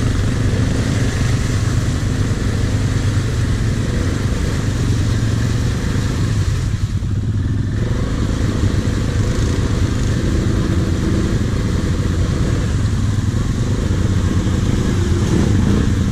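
ATV engine running steadily with a deep, even rumble.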